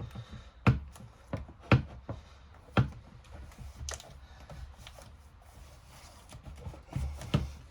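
About five scattered sharp clicks and taps from hands working smoked tint film over a motorcycle headlight, lifting and stretching the film and pressing out bubbles.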